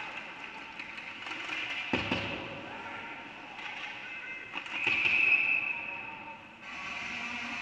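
Ice hockey rink sound during play, with a sharp knock about two seconds in. Voices shout across the echoing hall, loudest about five seconds in.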